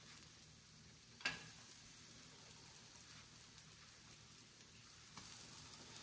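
Pancakes sizzling faintly on a griddle, with one sharp clack of the spatula on the griddle about a second in as a pancake is flipped.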